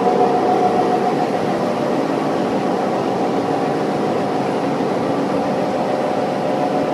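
Direct split beam warping machine running steadily: a constant mechanical hum with a steady whine in it.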